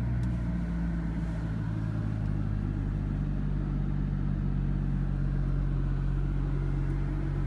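2017 BMW M240's turbocharged inline-six engine idling steadily in park, heard from inside the cabin.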